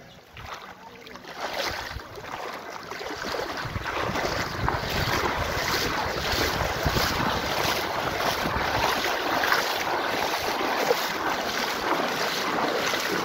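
Shallow river water running over a pebbly bed, mixed with wind buffeting the microphone; it grows louder over the first few seconds and then holds steady.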